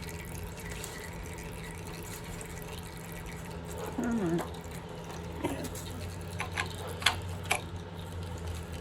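Engine teardown work at the Jeep 4.0L's timing cover: a short squeak about four seconds in, then a few light sharp clicks of metal parts and tools being handled, over a steady low hum.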